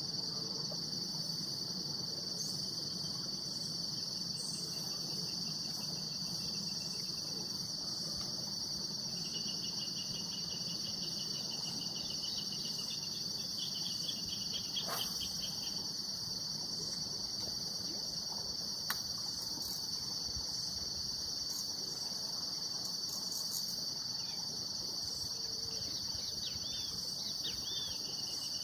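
A steady, high-pitched chorus of insects chirring, with a second insect trilling in quick pulses for several seconds about a third of the way in, and a few short chirps near the end.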